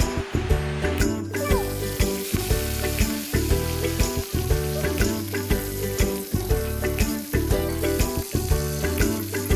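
Food sizzling as it fries in hot oil, a steady hiss that drops out briefly about a second in, under background music with a steady beat.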